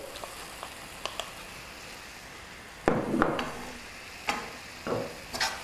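Grated carrots frying gently in ghee in a pan, with a steady sizzle, as roasted mawa is scraped in from a glass bowl and stirred with a wooden spatula. A few knocks and scrapes of the spatula against bowl and pan come through, the loudest about three seconds in.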